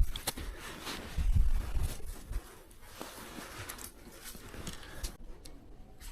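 Scattered clicks and rustling of close handling, with a muffled low thumping about a second in.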